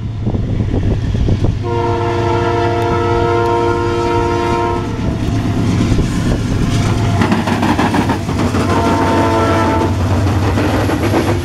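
Norfolk Southern diesel freight locomotives pass close by, sounding a multi-note air horn: one long blast of about three seconds, then a shorter one of about a second and a half. Under the horn there is the steady rumble of the diesel engines and the clatter of wheels on the rails.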